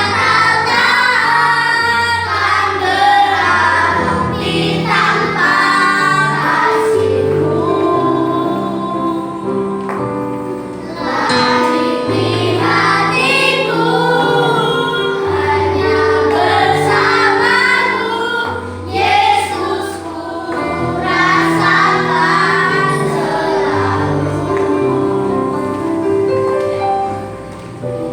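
A group of children singing a Christian song together, with a steady instrumental accompaniment underneath.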